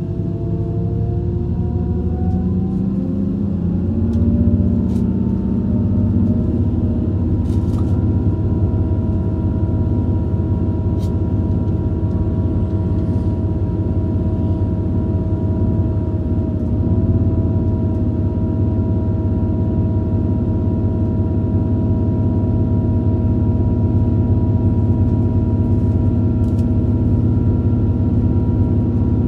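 Inside a regional passenger train under way: a steady low rumble of running noise. Over the first few seconds the drive's whine rises in pitch as the train gathers speed, then holds at a steady pitch. There are a few faint clicks.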